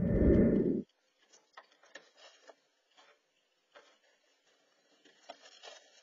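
A loud low rumbling burst that cuts off abruptly about a second in, followed by faint, scattered scratching and rustling of dry nest grass as a raccoon paws and noses into a robin's nest, growing busier near the end.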